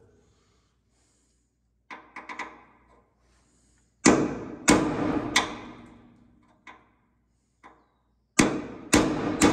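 Hammer blows on steel under the truck's frame, a punch being driven at the ground-flat rivets in the cross member. A few light taps come first, then heavy blows in groups of three, each ringing out.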